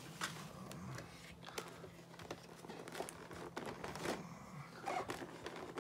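Clear plastic blister trays crinkling and clicking as they are handled and moved, in a scatter of short, light crackles over a faint steady hum.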